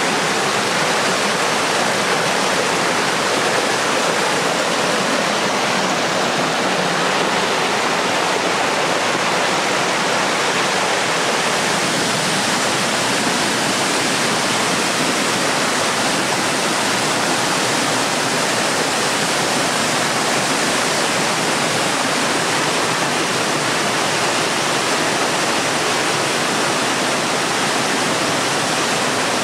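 Water of a mountain stream rushing, loud and steady, with no change from start to finish.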